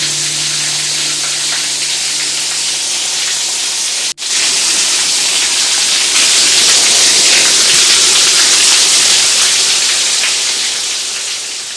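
Heavy rain pouring down in a loud, steady hiss. It breaks off for an instant about four seconds in, comes back louder, and fades out near the end.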